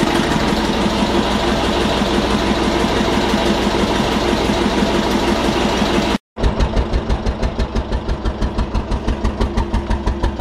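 Listeroid slow-running diesel engine running under a steady generator load on a crude oil and kerosene mix. It is first heard close up as a steady mechanical running sound. After a brief drop to silence about six seconds in, it is heard at its exhaust outlet as even, strong puffs about five a second, a note the owner reckons a fraction fatter, sounding slightly retarded, on this fuel.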